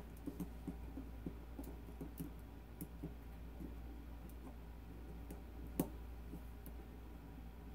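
Faint small metallic clicks and ticks of pliers working a retaining clip off a phonograph motor shaft, with one sharper click about three-quarters of the way through, over a low steady hum.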